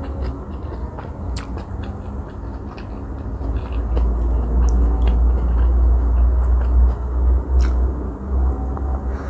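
Close-miked eating sounds from a Vietnamese fresh spring roll in rice paper: soft wet clicks and ticks as it is lifted dripping from chilli dipping sauce, then a bite into it near the end. A steady low rumble underlies it, loudest through the middle.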